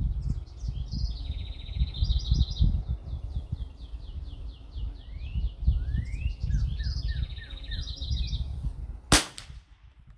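A songbird sings repeated phrases of quick falling notes and buzzy trills over wind rumbling on the microphone. About nine seconds in comes a single sharp crack: a shot from an Anschutz 1761 .22 LR target rifle.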